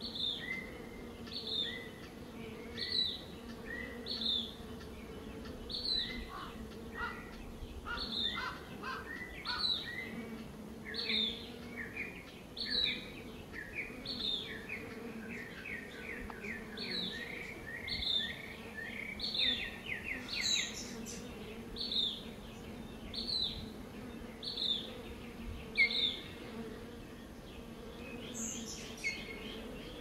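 Honey bees buzzing around flowers, a steady low hum, while a songbird repeats a short high chirp about every second and a half. Through the middle stretch a second run of rapid, lower chirps joins in.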